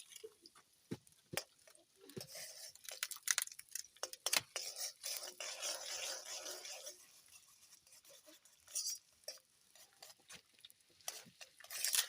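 Metal utensils clinking and knocking against a cooking pot as onions cook in oil, with an even hiss running through the middle few seconds.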